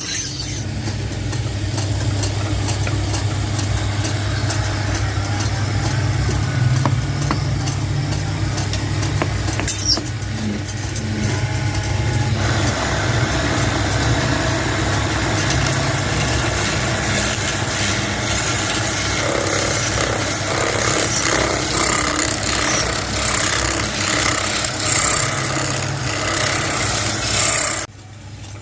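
A motor-driven machine running steadily with a low hum, growing noisier and fuller about twelve seconds in, then cutting off abruptly near the end.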